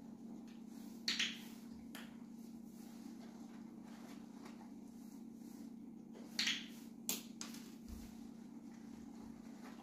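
Dog-training clicker snapped twice, about a second in and again around six and a half seconds, each a short, sharp click, with a lighter click just after seven seconds. It marks the dog's engagement with the box for a treat.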